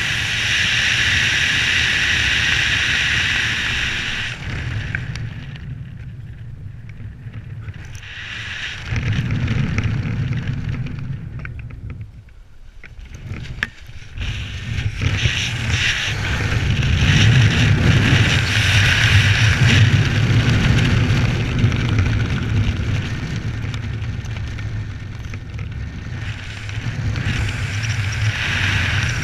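Wind rushing over the camera's microphone under an open parachute canopy, rising and falling: it drops away twice, about five to eight seconds in and again around twelve to fourteen seconds, and is strongest in the second half.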